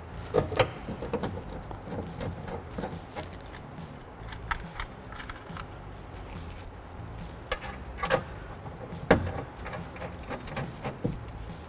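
Window regulator bolts clinking and tapping against the sheet-metal inner door panel as they are started by hand, a scatter of short metallic clicks with the sharpest about eight and nine seconds in.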